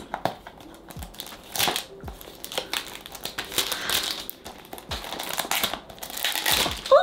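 Clear plastic wrapping being peeled and crumpled off a perfume box: irregular crinkling with bits of tearing, in uneven bursts.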